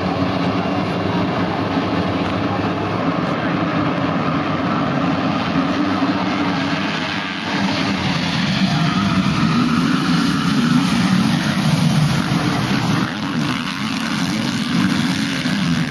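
A whole field of motocross bikes accelerating hard off the start and into the first turn, many engines revving over one another. The combined engine pitch climbs and falls as the riders work up through the gears and back off.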